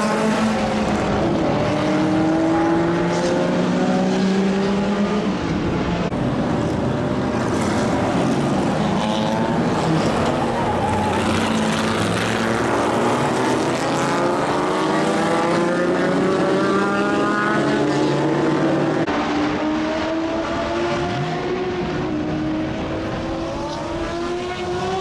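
Historic racing car engines at racing speed, one car after another passing close by, their note rising as they accelerate and dropping between gear changes.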